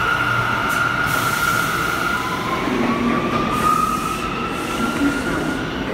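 New York City subway train pulling out of an underground station, its wheels squealing in a high steady tone over the running rumble. About two seconds in, a second tone takes over and rises slightly in pitch as the train moves off.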